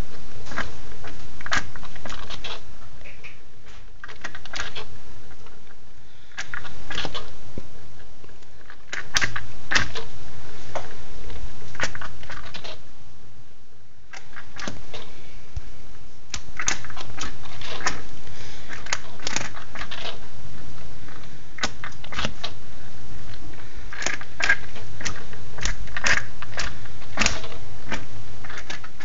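Audi A4 1.8T coolant system making irregular clicking and crackling noises over a low steady hum from the running engine, still doing so after more than an hour and a half of bleeding.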